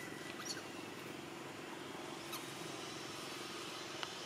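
Steady low hum in the background, with a few faint, brief high chirps scattered through it.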